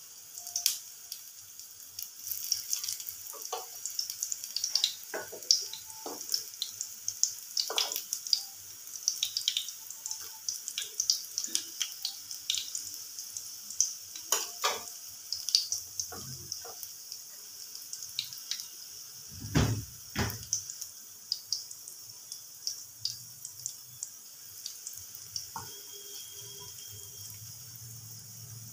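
Small potato pakoras frying in mustard oil in a frying pan: a steady sizzle with frequent small crackles and pops, and two dull knocks about two-thirds of the way through.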